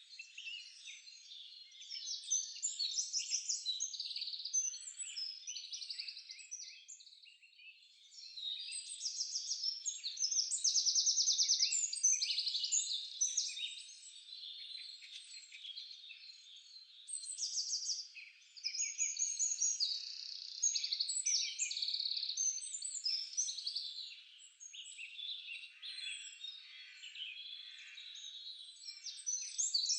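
Nature sound-effect track of many birds singing together, a dense mix of high chirps and quick trills that rises and falls in loudness, with no low sounds underneath.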